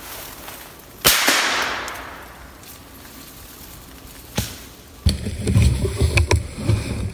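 A single .22 LR rifle shot from a Savage Arms 64, sharp and loud about a second in, echoing through the woods for about a second as it fades. A lighter knock follows a few seconds later, then dense close handling noise, knocking and rubbing, near the end.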